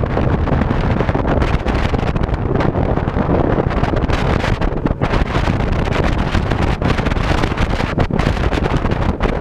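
Heavy wind buffeting the microphone as a Ranger bass boat runs across the lake at speed, with the boat's motor running underneath.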